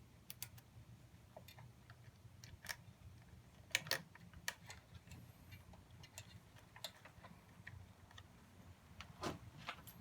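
Scattered small clicks and taps of hands working at a motorcycle's battery compartment during a battery install, the loudest two close together about four seconds in, over a faint low hum.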